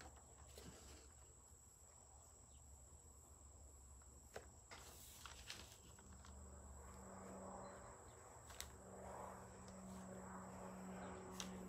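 Near silence: faint scratching of a felt-tip Sharpie marker tracing lines on paper, with a few small clicks and a faint steady high-pitched whine. A faint low hum comes in about halfway.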